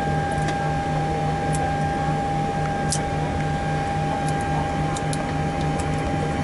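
Boeing 737-800 flight deck on the ground: a steady hum with a constant whine and a low pulsing throb. Over it come scattered light clicks of overhead-panel toggle switches being flipped, the sharpest about three seconds in.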